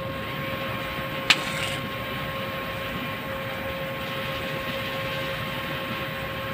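Steady machine drone with a constant hum, and a single sharp crack about a second in.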